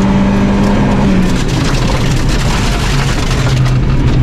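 Volvo 240 rally car's engine at speed, heard from inside the cabin. It holds a steady high pitch, drops off about a second in, then settles into a lower steady pitch near the end.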